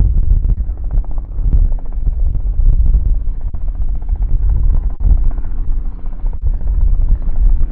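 Robinson R44 Raven II helicopter in flight overhead: rapid beating of its two-blade main rotor over the steady rumble of its six-cylinder Lycoming piston engine.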